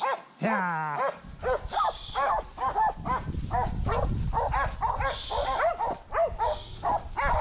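Cur dogs barking over and over, two or three barks a second, as they bay the cattle. About half a second in, a longhorn cow gives one long bawl that falls in pitch.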